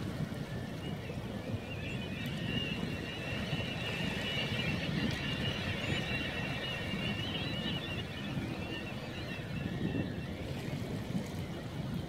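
A large flock of waterbirds calling together in the distance, a continuous high chattering that swells about two seconds in and fades near the end. Underneath, wind buffets the microphone and shallow water laps over rocks.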